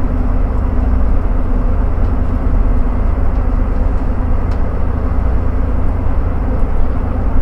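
Single-decker London bus driving hard, heard from inside the passenger saloon: a steady deep engine and drivetrain rumble with a constant hum, and road noise under it.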